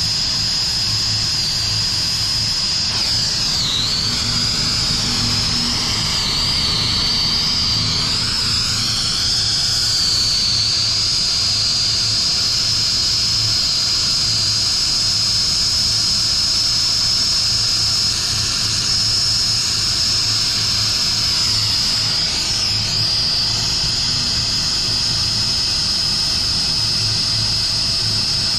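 Brazing torch flame burning steadily with a loud hiss and a high whistling tone, the tone dipping briefly twice as the flame is worked around a copper joint.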